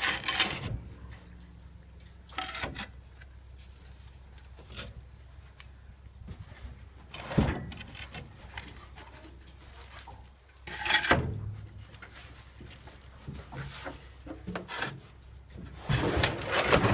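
A 34-gallon steel pickup fuel tank being dragged out over wooden 2x4 boards by hand: separate scrapes and knocks several seconds apart, the sharpest knock about seven seconds in, a longer scrape about eleven seconds in, and a cluster of scrapes near the end.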